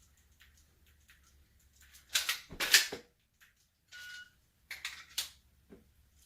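Dry-fire drill with a Glock 34 pistol: faint clicks of trigger presses, then a loud clatter of a magazine reload about two seconds in, a short steady electronic beep from a shot timer about four seconds in, and a few more sharp clicks near the end.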